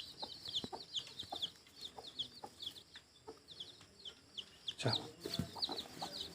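Newly hatched local chicks peeping over and over in short, high, falling notes, with a brooding hen giving soft low clucks among them, a little louder about five seconds in.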